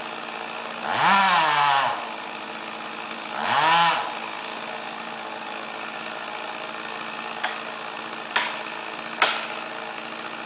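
Chainsaw running at idle and revved twice in quick succession, the pitch rising and falling each time. Near the end come three sharp cracks.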